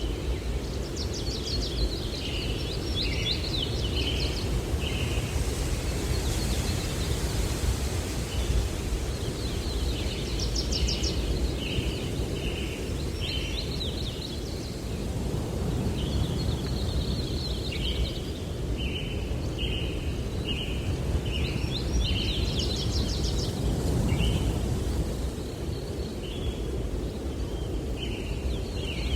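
Songbirds singing in repeated phrases of short chirping notes, over a steady low rumble of wind.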